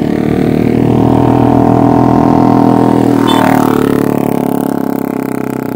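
A motorcycle passing on the road, its engine running steadily, growing louder to a peak about two seconds in and then slowly fading away.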